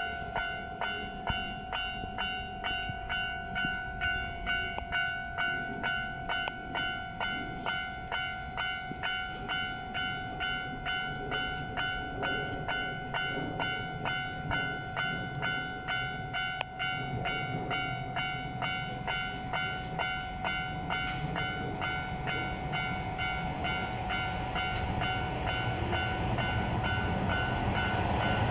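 Japanese level-crossing warning bell ringing its fast, even, repeating electronic ding. Over the last several seconds the rumble of an approaching Keikyu New 1000 series train grows louder under it.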